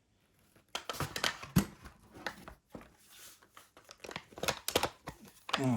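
Hands handling gear at close range: irregular crinkling rustles with scattered sharp clicks and light knocks.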